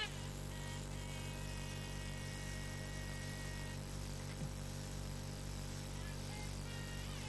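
Steady low electrical hum, with a few faint thin tones above it.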